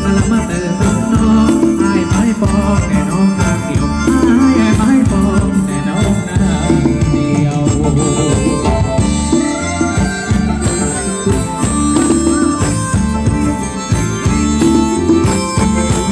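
Thai ramwong folk dance music from a live band, with a steady beat of drums and shaken percussion and a melody over it.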